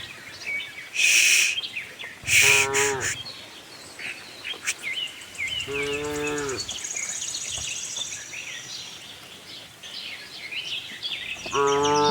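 Cows mooing: three long calls, the last starting near the end, with small birds chirping and trilling throughout. Two short breathy bursts come about one and two and a half seconds in.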